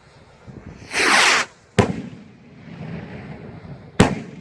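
Firework rocket launching with a hissing whoosh about a second in, followed by two sharp bangs from rockets bursting, about two seconds apart; the second bang is the louder.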